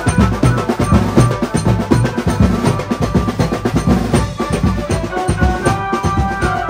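Music with fast, steady drumming and a melody over it; the drums thin out briefly near the end while held notes carry on.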